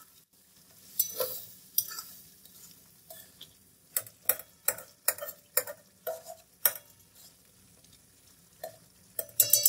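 Spatula stirring and scraping through beef, tomatoes and liquid in a metal karahi, an irregular series of short scrapes and clicks about one or two a second.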